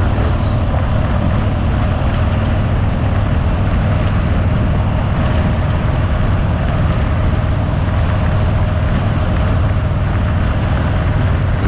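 Harley-Davidson Fat Bob's V-twin engine running steadily under way, with wind rush on the handlebar-mounted camera's microphone.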